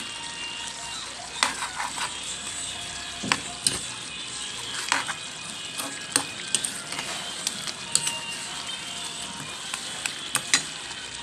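Chicken curry with sweet potato, carrots and bell pepper sizzling in a pan: a steady high hiss with scattered sharp pops and clicks.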